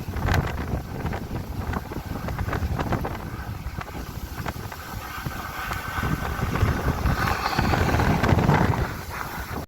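Strong gusty wind buffeting the microphone in a rumbling roar, swelling louder for a few seconds before easing near the end.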